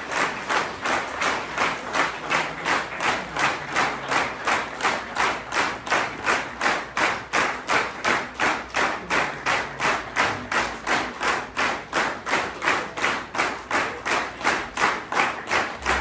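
Audience clapping in unison, a steady beat of roughly three claps a second.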